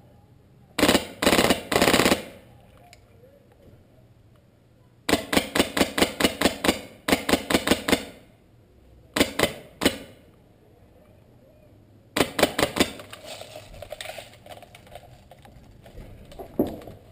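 Airsoft gun firing in bursts of rapid, clattering shots, in four strings: about a second in, from about five to eight seconds, near ten seconds, and around twelve to thirteen seconds.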